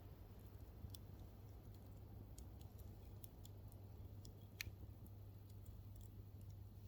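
Campfire burning quietly: faint crackling with sparse sharp pops from the burning wood, one a little louder about two-thirds of the way through.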